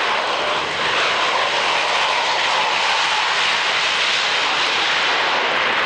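Propeller aircraft engines running, a loud steady noise that dips briefly under a second in.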